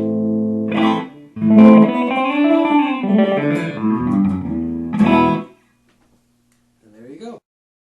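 Hand-built PRS-style solid-body electric guitar played through a Fender Blues Junior amp: a held chord rings out, then a strummed chord, a short phrase of notes and a final chord that is cut off about five and a half seconds in. Near the end comes a brief, quieter sliding sound.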